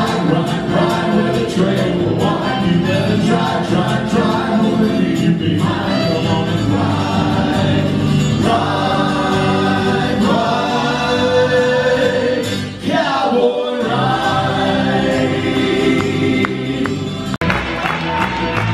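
Live country band playing, with acoustic guitar, fiddle, electric bass and keyboard under sung vocals. The music jumps abruptly to a different passage near the end.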